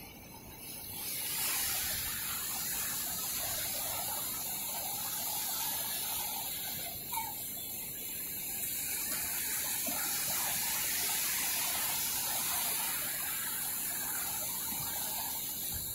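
Small sea waves breaking and washing up on a sandy beach: a steady rushing wash of surf that comes in about a second in, with one brief squeak about seven seconds in.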